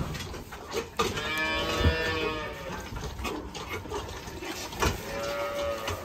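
Calves mooing: two long calls, one about a second in and one near the end, with a few sharp knocks in between.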